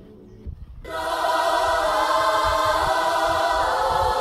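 Background music: a quiet passage gives way about a second in to a loud, full section with choir-like sung voices.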